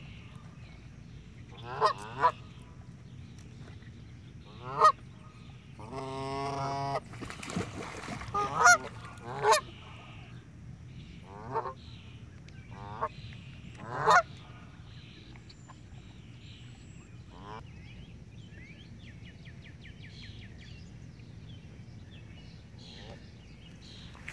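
Canada geese honking, a run of short, loud honks with one longer call about six seconds in. The calls thin out and grow fainter in the second half.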